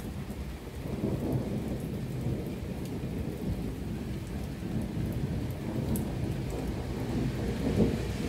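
Heavy rain falling in a thunderstorm, with a low rolling rumble of thunder underneath and scattered raindrops ticking close by; the rumble swells about a second in and again near the end.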